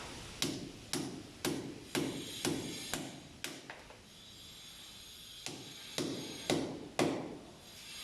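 Hammer blows, about two a second: a run of seven, a pause of about two seconds, then four more.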